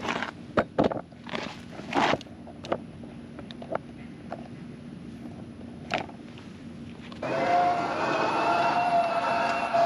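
Knocks and clicks of the camera being handled and set down, then about seven seconds in a Toro Revolution GrandStand battery-electric stand-on mower starts up close by, running with a steady electric whine over a rushing hiss.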